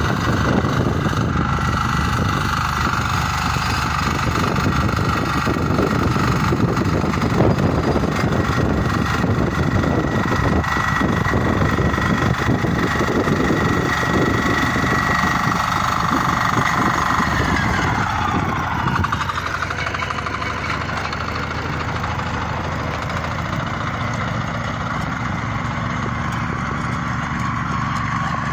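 Walk-behind motor hoe (rotary tiller) engine running steadily under load as its tines churn the soil. The engine note changes about two-thirds of the way in.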